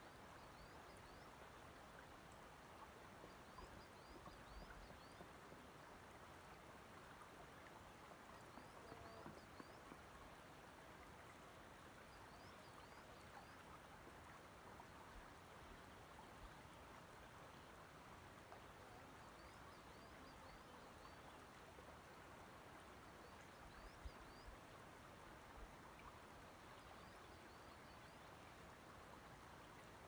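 Faint, gentle lapping and trickling of shallow loch water among shoreline stones, a soft steady wash. Small high chirps, like distant birds, come in brief clusters every few seconds.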